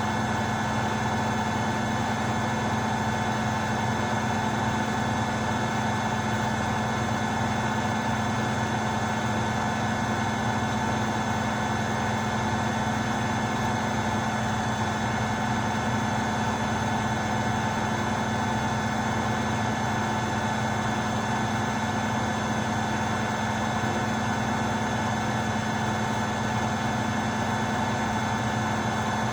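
Beko washing machine spinning at a steady high speed: a constant hum with several steady high tones from the drum and motor, unchanging throughout.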